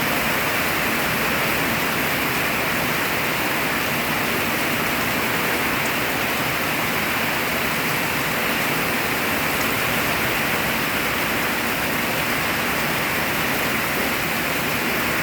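Heavy rain falling in a steady, dense hiss that holds even throughout.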